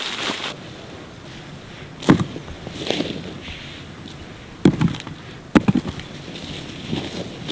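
A few sharp knocks or chops: three loud strikes about two, four and a half and five and a half seconds in, with softer thuds between.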